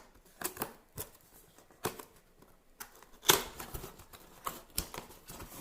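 Cardboard box of a gaming keyboard being handled and opened: a scattering of sharp taps and clicks, the loudest a little over three seconds in.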